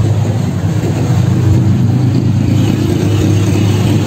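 Street traffic with a vehicle engine running close by, a steady loud hum.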